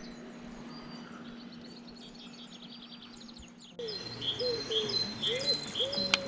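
Small birds singing, with rapid repeated high chirps, over a steady low hum. About four seconds in, background music cuts in abruptly, louder than the birdsong.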